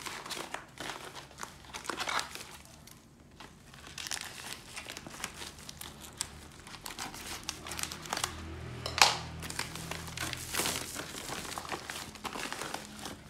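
Black plastic bubble mailer crinkling and rustling as it is handled and cut open with scissors, with one sharp, louder crackle about nine seconds in.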